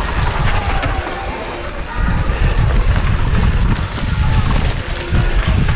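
A mountain bike being ridden fast over rough ground: loud, constantly shifting wind rush on the microphone mixed with the rattle and rumble of the bike and its tyres.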